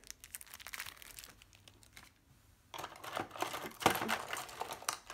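Small plastic bags crinkling as they are handled, in two spells with a short lull about two seconds in, and a sharp click a little before the end.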